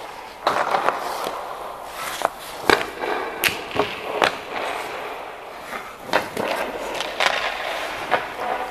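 Ice skates scraping and carving on rink ice in repeated swishing strokes, with several sharp knocks scattered through it.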